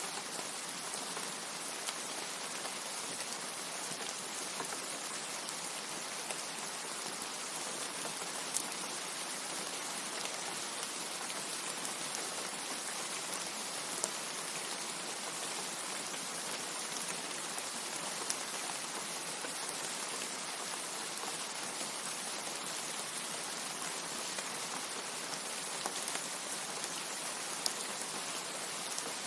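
Steady, hissing rain with no thunder, with a few sharp ticks of single drops standing out now and then.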